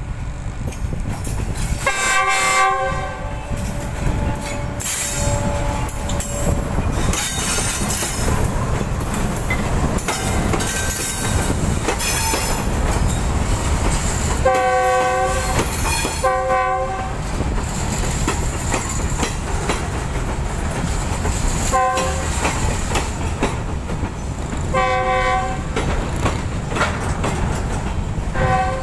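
A train running along the track, with steady wheel and rail noise and a regular clickety-clack from the rail joints. The train horn sounds in short blasts, about six in all: one near the start, two close together around the middle, and three more toward the end.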